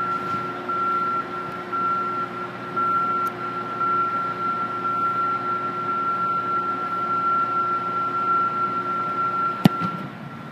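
A steady mechanical hum with a thin high whine fills the hall. Near the end comes a single sharp thud as the kicker's foot strikes the football on a field goal attempt.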